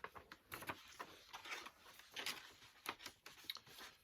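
Faint, irregular rustling and crinkling with small clicks and taps as packaging is handled.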